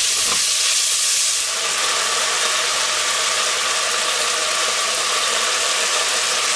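Diced meat sizzling and frying in a hot enamelled cast-iron cocotte (Dutch oven) while being stirred with a wooden spatula. There is a steady hiss, a little brighter for about the first second and a half.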